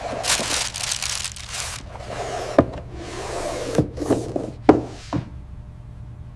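Cardboard gift boxes and satin ribbon rustling as they are handled, with four sharp knocks of boxes set down on a hard tabletop, over a low steady hum.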